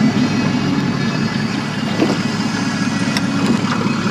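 Boat engine idling: a steady low drone, with a couple of faint clicks over it.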